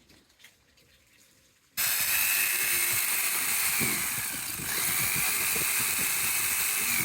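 Jigsaw cutting through the van roof to enlarge the vent opening, starting abruptly about two seconds in with a steady high motor whine over blade chatter; the whine sags briefly partway through as the blade bogs, then picks back up.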